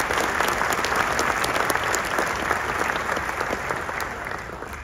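Large audience applauding, many hands clapping at once; the clapping dies away near the end.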